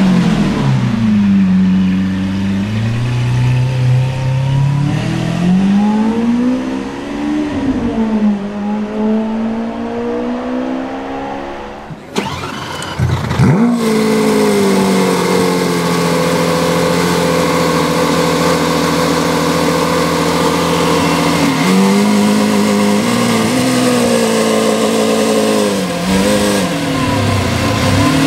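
Lamborghini Aventador V12 engine revving and moving, its pitch rising and falling, for about the first twelve seconds. Then another Aventador's V12 starts with a sudden bark and settles into a steady high idle, the revs lifting and dipping a little now and then near the end.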